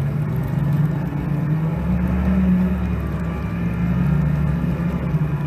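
Outboard motors on a center-console boat running hard in shallow water, the engine note rising about two seconds in and easing back a second later. The boat is aground on a sandbar and is powering to get off, its lower units churning the bottom.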